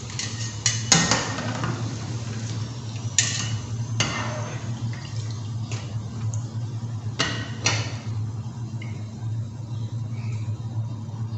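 Kachori deep-frying in a kadhai of hot oil, a steady sizzle over a low steady hum, with a metal spoon knocking and clinking against the kadhai several times, most sharply about a second in and again after three, four and seven seconds.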